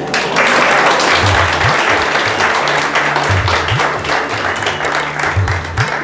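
Audience applauding, starting suddenly and dying down near the end, over background music with a repeating bass line.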